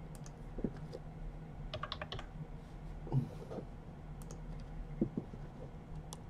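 Computer keyboard keystrokes and a few clicks, faint and irregular, with a small cluster of quick taps about two seconds in.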